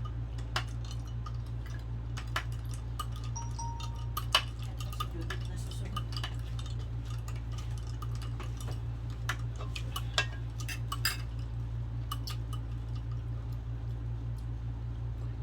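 Scattered light clinks and clicks of tableware being handled while eating, the sharpest about four seconds in, over a steady low hum.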